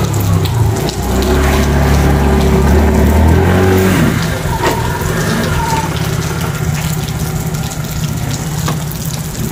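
Small scooter engine, a Mondial Wing's 49cc bored out to 100cc, pulling the scooter up under throttle. It drops in pitch as the scooter stops about four seconds in, then idles steadily.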